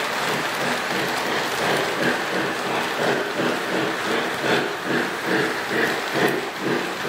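Electric model train running close past on its track: a steady rattle of wheels and cars on the rails, with a faint hum under it.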